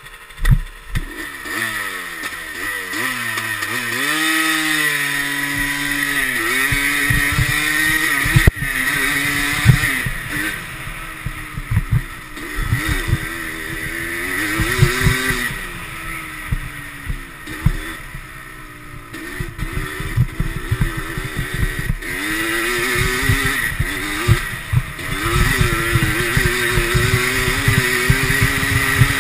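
ATV engine revving up and down over and over as the quad is ridden along a rough dirt trail. Frequent short thumps and knocks run through it.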